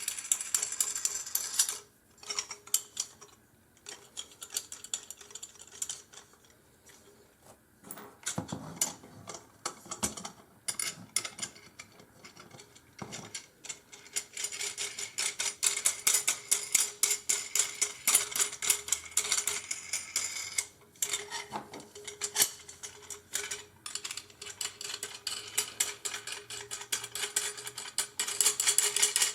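Metal fasteners and parts of an aluminum-frame filament spool holder being worked by hand: dense, rapid metallic clicking and ratcheting. It thins to scattered quiet clicks a couple of seconds in, then picks up again from about halfway.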